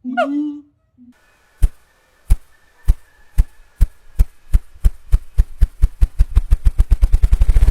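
Ruffed grouse drumming: deep wing-beat thumps, slow at first, then quickening steadily into a rapid roll. A short honking call ends just before the first thump.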